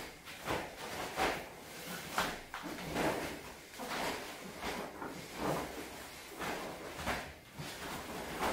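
Sharp swishes and snaps of a taekwondo uniform and bare feet on the mat as one practitioner performs a poomsae, an irregular series of short sounds about one or two a second.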